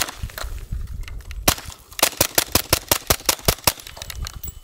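Semi-automatic Kriss Vector in .45 ACP firing through a Rugged Obsidian 45 suppressor. There is a shot right at the start and another about a second and a half in, then a quick string of about ten shots at roughly six a second.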